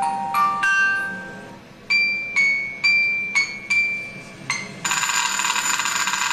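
Music from the animated film's soundtrack: single struck notes, each ringing and fading, a couple a second, then from about five seconds in a dense, continuous shimmer of high ringing tones.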